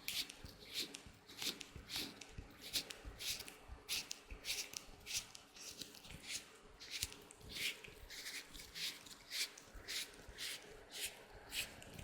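Latex gloves rubbed and handled close to the microphone: a run of short, crisp rubbing strokes, about two a second.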